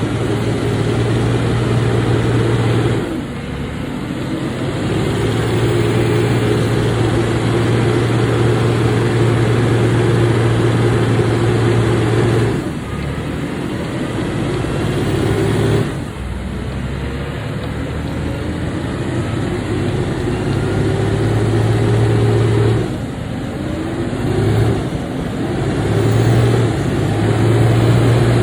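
Heavy truck engine running under load. Its pitch climbs steadily and then drops abruptly about four times, each drop followed by a fresh climb.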